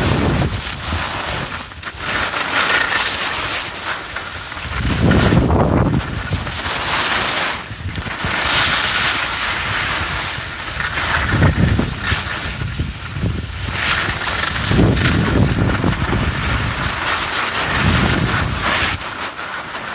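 Skis running and scraping over packed snow, a rushing hiss that swells and fades again and again, with low gusts of wind rumbling on the microphone.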